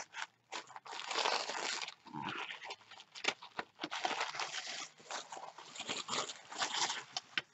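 Pink tissue paper being unfolded and smoothed by hand, rustling and crinkling in irregular bursts with sharp crackles.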